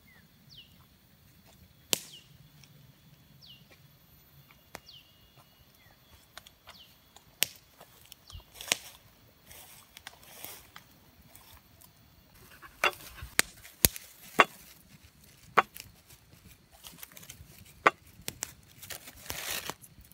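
Scattered sharp cracks and knocks, a few in the first half and a quick run of them in the second half. Over the first seven seconds a bird gives a short falling whistle about every second and a half.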